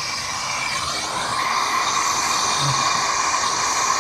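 Plumber's torch flame hissing steadily with a whistling tone, its pitch shifting and the sound growing a little louder about a second in, as it heats leftover solder drips off a copper pipe.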